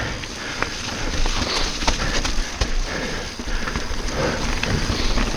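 Mountain bike riding down a rooty, rocky downhill trail: tyres knocking over roots and rocks, with the chain and frame rattling in many short, irregular clicks and clatters over a steady rumble.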